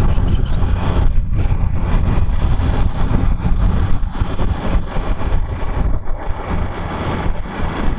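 Triumph Tiger Sport 660's three-cylinder engine running as the motorcycle is ridden, with wind noise on the rider's microphone.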